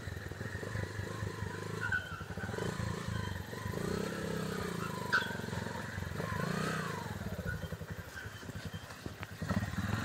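A motorcycle engine running and revving, its pitch swelling up and back down twice, with a short click about five seconds in.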